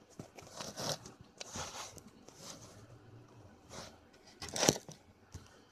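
Several brief rustles close to the microphone in an otherwise quiet room, the loudest about three-quarters of the way through; no singing yet.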